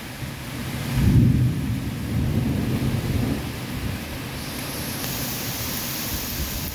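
Thunder rumbling over steady rain: a deep roll swells about a second in, then rolls on and fades over the next couple of seconds. Later the rain hiss grows louder.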